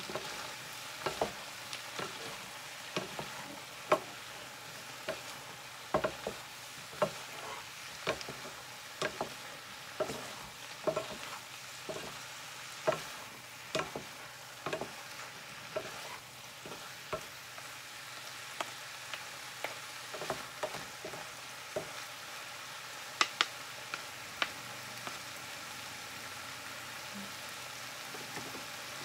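Chopped vegetables sizzling in a frying pan while two wooden spatulas toss them, knocking and scraping against the pan about once a second. After a while the knocks thin out to a few, leaving the steady sizzle.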